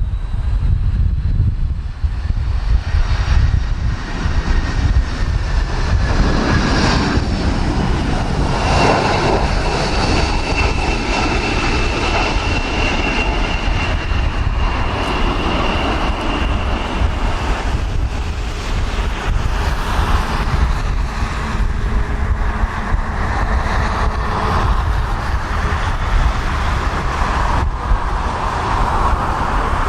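Boeing 767 jet engines whining steadily during its approach to land, several thin whine tones sliding slightly in pitch. Gusty wind buffets the microphone with a heavy low rumble throughout.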